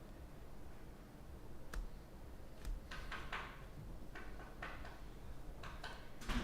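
Trading cards being handled and flipped through: a series of light clicks and short papery swishes as cards slide over one another, the loudest near the end.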